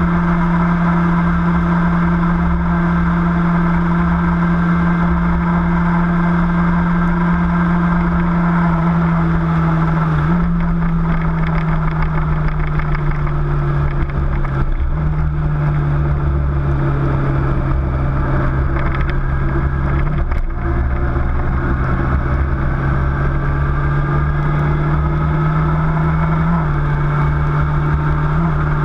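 Engine of the vehicle carrying the camera, running steadily while driving, with a constant low rumble of road noise. Its pitch drops abruptly twice in the first half and jumps back up twice later.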